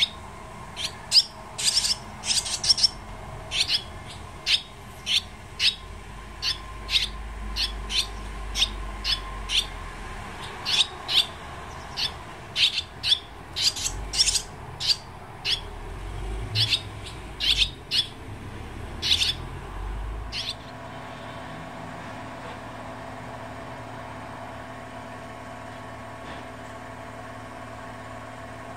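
Barn swallow nestlings about 19 days old, close to fledging, giving short sharp begging chirps in quick clusters, one or two a second. The calling stops about two-thirds of the way through, leaving only a faint steady background.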